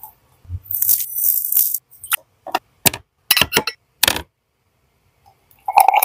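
Wooden skewer with a piece of candied mango knocking and clinking against a glass mug of hot sugar syrup as it is dipped and turned: a short high hiss about a second in, then about seven sharp clicks over the next two seconds.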